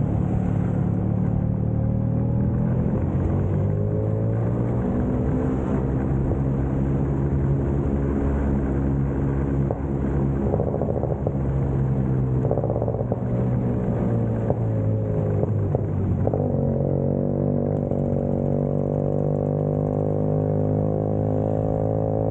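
Vespa scooter engine running under way, its pitch rising and falling gently with the throttle, then holding steadier and a little higher from about sixteen seconds in.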